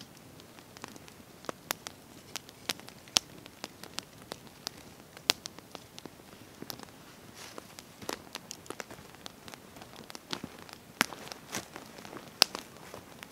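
Wood campfire crackling, with irregular sharp pops a few times a second over a soft hiss; the loudest pops fall about three, five, eleven and twelve seconds in.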